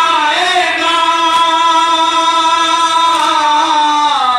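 Male voices chanting a noha, a Shia lament, unaccompanied. They hold one long note that falls near the end.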